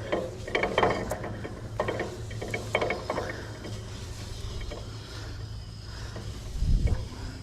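Badland winch being paid out, with clusters of rapid ratcheting clicks from the drum and gears during the first few seconds. A loud low thump comes near the end.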